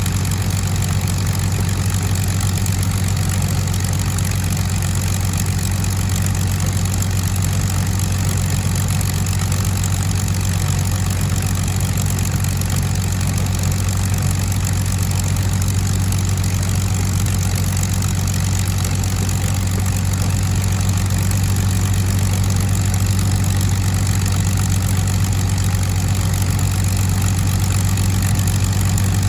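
De Havilland Mosquito's Rolls-Royce Merlin V12 engines running steadily at idle, an even low drone that holds the same pitch, growing slightly louder near the end.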